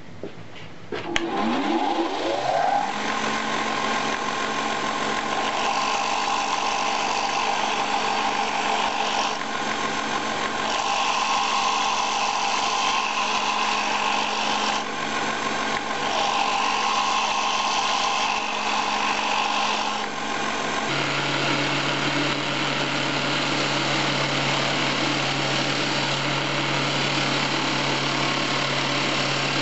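Electric grinder motor spinning up about a second in, then running steadily while a steel knife blade is pressed against the wheel in three passes, each adding a higher grinding hiss. At about two-thirds of the way through it changes to the steady running and rasp of a belt grinder as the blade's bevel is ground in a jig against the abrasive belt.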